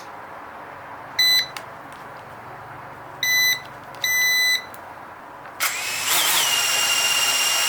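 Small camera drone beeping three times, then its motors spinning up about two thirds of the way in and running with a steady whine and rush of air.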